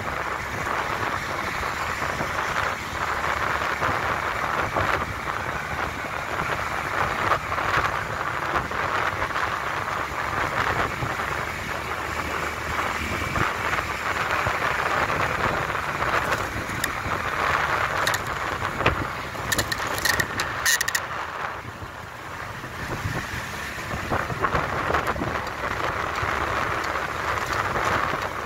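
Wind rushing over the microphone together with road noise while riding along a road lane, a steady rushing hiss, with a few short clicks or rattles about two-thirds of the way through.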